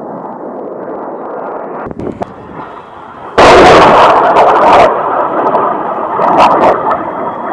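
A sudden, very loud blast about three and a half seconds in, lasting about a second and a half, over a steady rushing noise. A few sharp cracks come before and after it.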